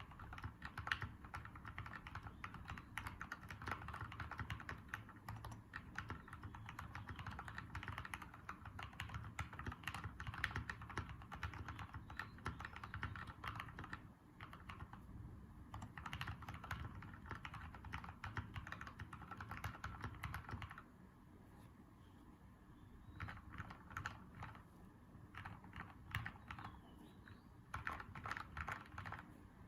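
Fast typing on a stacked-acrylic-case mechanical keyboard with lubed Gateron Yellow linear switches on 35 g springs and MT3 keycaps. The keystrokes are dense and continuous, break off briefly about halfway, slow to scattered, quieter presses for several seconds after about two-thirds of the way, then pick up fast again near the end.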